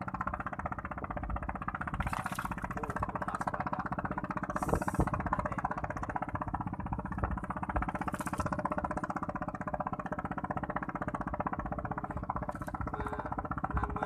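A small engine running steadily with an even, fast pulsing and no change in speed.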